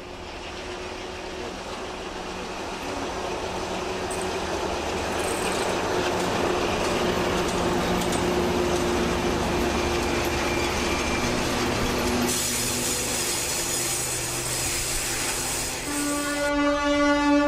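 Class 241 'Ludmilla' diesel locomotive passing close, its heavy engine drone and rail noise building as it comes by. A locomotive horn blows briefly near the end.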